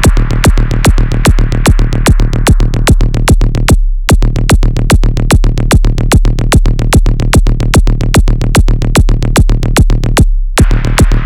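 Electronic techno music with a steady, fast drum-machine beat over a constant deep bass. The beat drops out briefly about four seconds in and again near the end, leaving only the bass.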